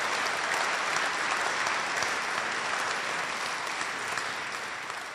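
Audience in a hall applauding, the clapping slowly fading toward the end.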